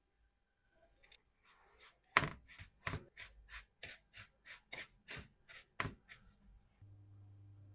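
A knife chopping on a cutting board: about a dozen quick, even strokes, roughly three a second.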